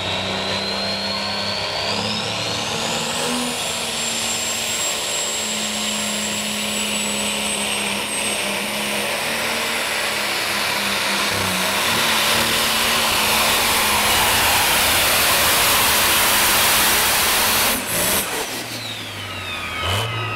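Turbocharged diesel engine of a John Deere pulling tractor running at full power while hauling the weight sled, with a high turbo whine rising in pitch over the first few seconds. The engine grows louder, then cuts off abruptly near the end, and the turbo's whine falls away as it spools down.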